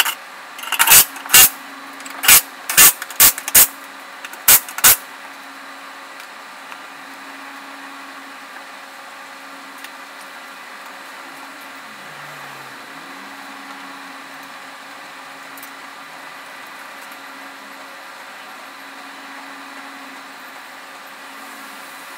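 Cordless impact wrench fired in about eight short, loud bursts, mostly in pairs, over the first five seconds as bolts are run in. After that only a steady low hum remains.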